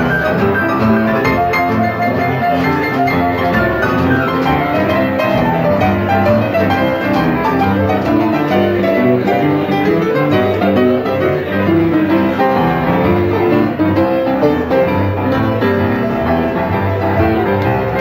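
Two upright pianos played together in a boogie-woogie blues jam, with a dense, steady run of notes.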